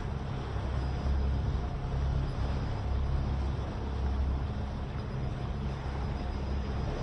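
A motorboat's engine running steadily as the boat moves under way, a low steady hum with water and wind noise over it.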